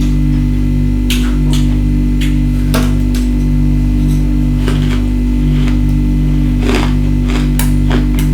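Ice being bitten and crunched in the mouth: about a dozen sharp crunches at uneven intervals, over a steady low background drone.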